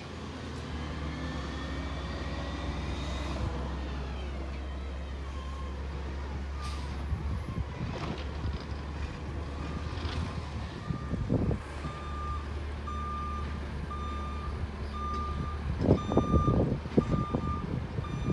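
McNeilus ZR garbage truck's diesel engine running, revving up and back down in the first few seconds, then its reversing alarm beeping about once a second through the second half. A few loud rumbles come near the end.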